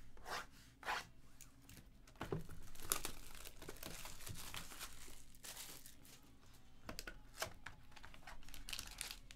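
Plastic shrink-wrap being torn and crumpled off a sealed box of trading cards. A few light clicks and taps come first, then a long tearing and crinkling stretch starting about two seconds in, and loose crinkles after it.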